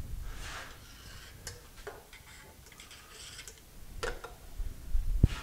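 Handling on a metal lathe: a few scattered light clicks with faint rustling, then two clicks as a small can is set down on the lathe about four seconds in, and a cluster of knocks ending in a heavier thud near the end.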